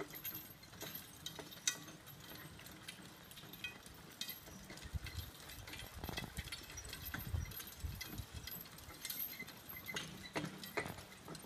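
A team of two horses walking while pulling a steel log-loader trailer: faint hoofbeats with scattered jingles and clinks from the harness and trailer, and a few low thuds near the middle.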